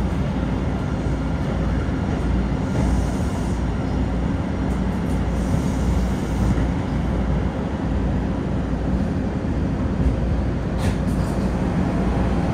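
Siemens-built MBTA Blue Line subway car running, heard from inside the car: a steady rumble of wheels on rail and running gear. A single short click comes near the end.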